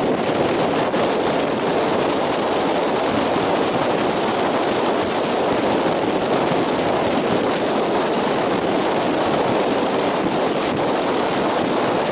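Strong wind blowing across the microphone over heavy surf: a steady, dense rush of noise.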